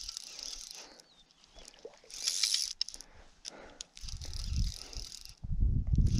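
Fly reel's click-and-pawl drag ratcheting in quick runs of clicks while a hooked trout is played, loudest about two seconds in. A low rumble comes in over the last two seconds.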